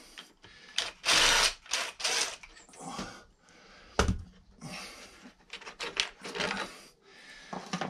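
DeWalt 18V XR cordless drill-driver running briefly twice in the first couple of seconds, backing screws out of a mower engine's cover. A sharp knock about four seconds in as the drill is set down on the wooden bench, then plastic clicks and rattles as the cover panel is pulled off.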